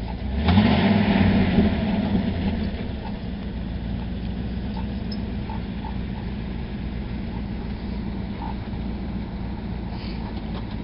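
Pickup truck engine revving up with a rising pitch about half a second in and running hard for about two seconds, then settling back to a steady low idle.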